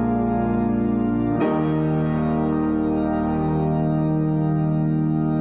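Church organ and piano playing a hymn together in long sustained chords, moving to a new chord about a second and a half in and holding it as the closing chord.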